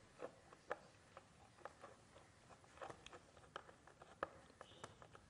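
Near silence with faint, irregular small clicks and taps as a wire is worked onto a screw terminal of a fitting on a wooden wiring board.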